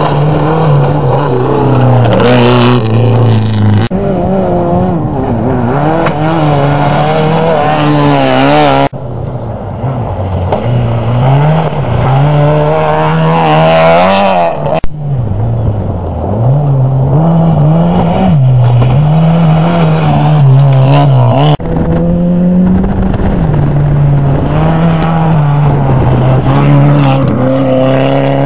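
Rally car engines revving hard as the cars pass at speed on a gravel stage, their pitch climbing and dropping with throttle and gear changes. It is a run of four short passes, each cut off abruptly by the next.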